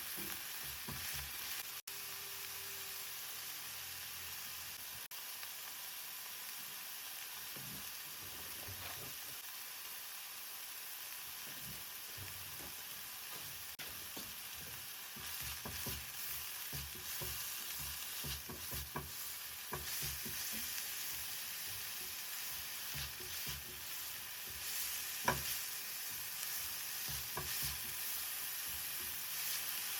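Vegetables sizzling in hot ghee in a pan, with a spoon stirring and tapping against the pan. The stirring knocks come more often in the second half, with one sharper click near the end.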